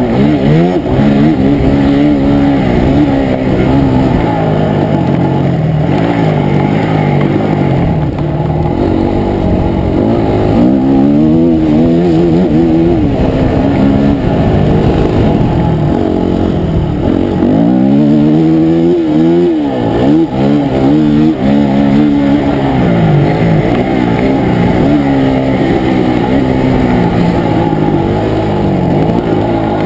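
Motocross dirt bike engine heard up close from the bike itself, revving up and dropping back over and over as the rider opens and shuts the throttle and shifts around the track. About twenty seconds in the pitch falls away sharply as the throttle is closed, then climbs again.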